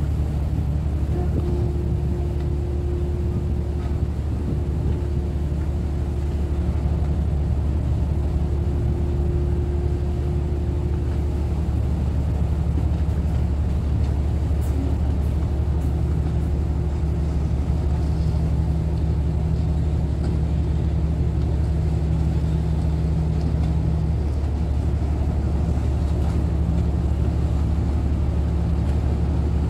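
A ferry's diesel engines running with a steady low drone and a few steady hums above it, heard from the open deck as the ferry slows and manoeuvres into its berth.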